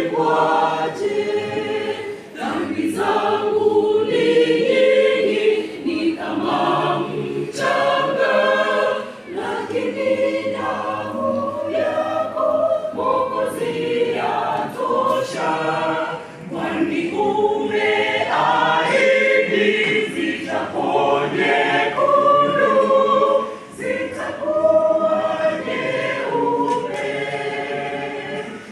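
Mixed choir of men's and women's voices singing a gospel song in parts, with short breaks between phrases every several seconds.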